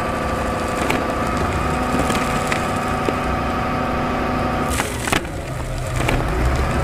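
Soil and gravel crackling and sliding out of the tipping bed of a plastic toy dump truck, with scattered clicks and a cluster of louder cracks about five seconds in. Under it runs a steady hum at a few fixed pitches, which drops out around the time of those cracks.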